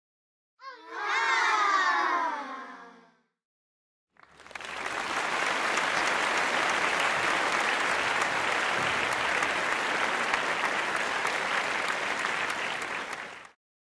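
A short falling, wavering sound of several pitches, then a crowd applauding for about nine seconds, cutting off sharply near the end.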